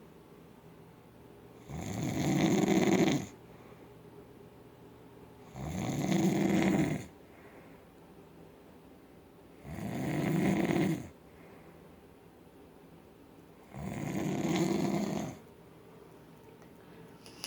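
Loud snoring: four long snores at an even pace, about one every four seconds.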